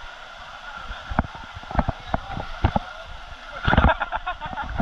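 Irregular splashes and knocks of water, with a louder cluster of splashing near the end, over the steady rush of a waterfall.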